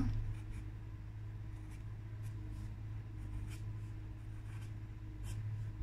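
Coloured pencil rubbing on paper in light, irregular strokes, over a low steady hum.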